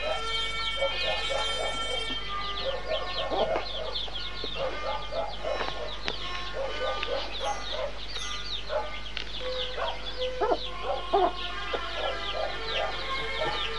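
Many birds chirping rapidly and without pause, with lower clucking calls mixed in, over a steady low hum.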